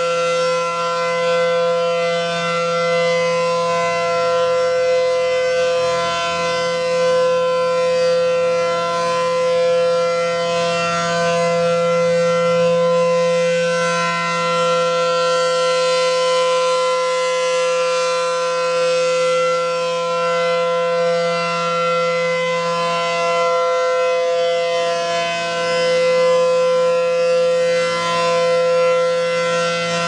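ACA Allertor electronic warning siren sounding a steady single-pitch alert tone. Its loudness swells and fades gently as the rotating horn sweeps around.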